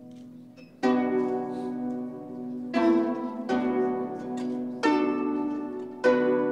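Konghou, the Chinese harp, being played: plucked notes and chords that ring and fade, the first new one about a second in and then another every one to two seconds.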